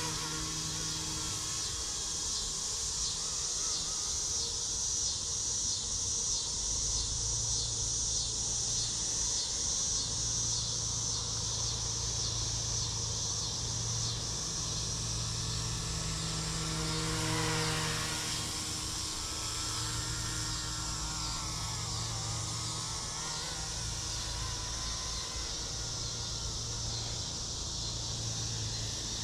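Electric RC GPS helicopter in flight: a steady whine from its motor and rotors, with a low hum beneath. About 17 seconds in, the whine's pitch dips and rises once.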